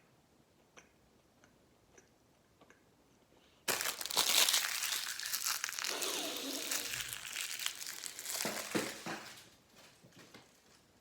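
Loud crumpling and crinkling that starts suddenly about four seconds in, goes on for about six seconds and then fades, after a few faint ticks.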